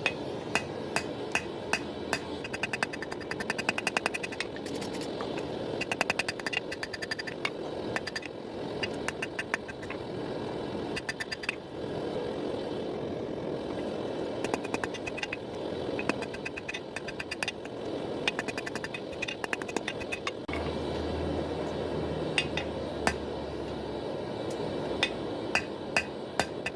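Hammer blows on hot pattern-welded steel on an anvil, struck in quick runs of several blows a second with short metallic rings, over a steady rushing noise.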